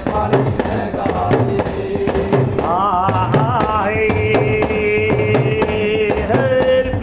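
Male voices singing a devotional bhajan, with a wavering phrase followed by a long held note, over steady strokes of hand cymbals at about three beats a second.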